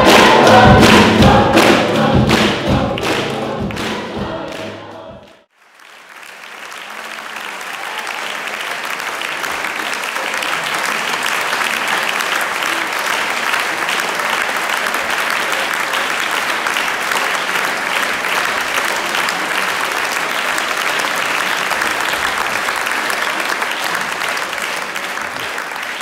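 Large mixed choir singing with a steady beat, stopping abruptly about five seconds in. After a brief silence, audience applause swells and holds steady.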